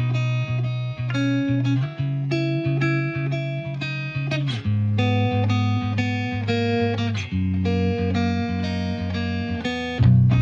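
Background music: an instrumental with plucked guitar, its chords changing every two or three seconds and growing louder near the end.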